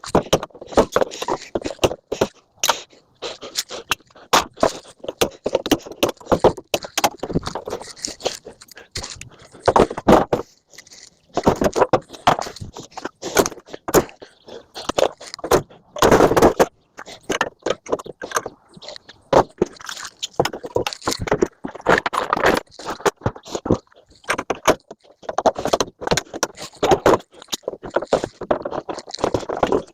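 Scrap metal being handled and sorted: irregular knocks, clanks and scraping of metal pieces, with many short sharp hits close together.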